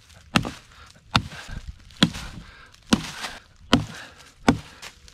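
Hatchet chopping a dead fallen branch: six sharp, evenly paced strikes, a little under a second apart.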